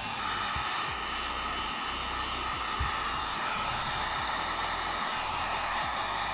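Heat gun blowing hot air steadily, a constant rush with a faint whine, shrinking heat-shrink tubing over carburetor vent hoses.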